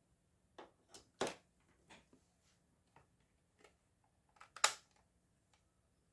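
Irregular light clicks and taps of small hard parts or tools being handled, about nine in all, with two sharper clacks, one a little over a second in and one past the middle.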